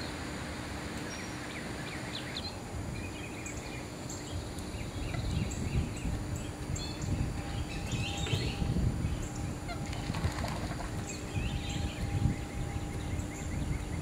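Wild birds calling: repeated short, high chirps and a burst of chattering calls about eight seconds in, over an uneven low rumble that grows louder after about five seconds.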